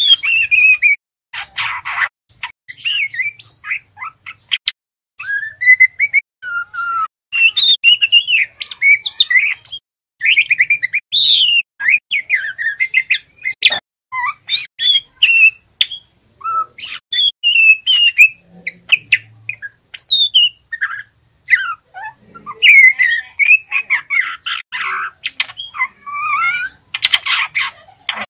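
Juvenile male white-rumped shama (murai batu trotolan) practising its song: a rambling run of short chirps and warbled, pitch-sliding phrases. A few harsh, scratchy notes come about two seconds in and again near the end.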